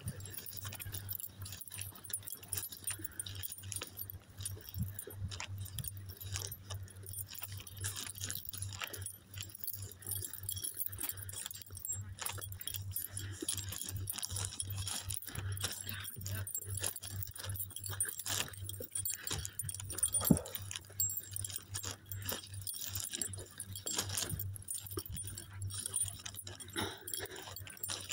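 Footsteps walking over soft dry beach sand: a continuous run of small irregular scuffs and crunches, over a steady low hum, with one louder knock about twenty seconds in.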